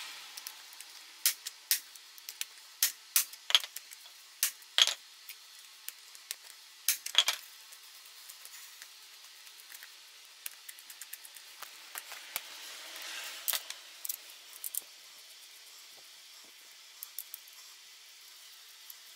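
Metal hand tools and parts clinking and tapping against a motorcycle engine's aluminium crankcase as it is dismantled. A quick run of sharp clinks fills the first several seconds, a brief scraping comes about twelve to fourteen seconds in, and a few scattered clinks follow.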